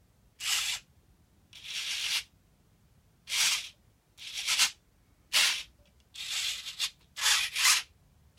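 Servos of a radio-controlled F-22 model jet moving its thrust-vectoring nozzles back and forth. There are seven short runs of servo noise, each under a second, about a second apart.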